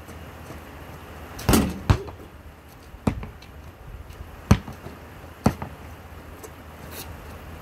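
A basketball thudding on a hard court, about six sharp separate hits at uneven spacing, the loudest a double hit about one and a half seconds in.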